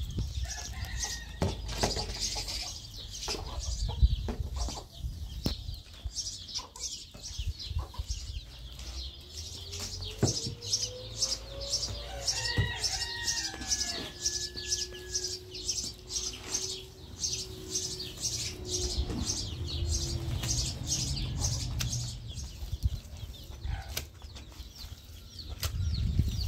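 Scraping and rustling of a shovel and hands working a heap of soil and straw into mud on a plastic sheet, in short strokes about twice a second, with a chicken calling now and then.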